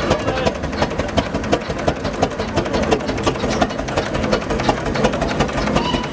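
Engine running steadily with a regular knocking beat, about four knocks a second, over a continuous low rumble.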